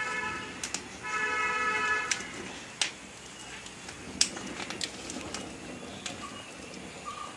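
A horn sounds twice near the start, a short blast and then one about a second long. After that a coconut-shell fire gives scattered sharp crackles and pops as a banana leaf is passed through the flames to wilt it.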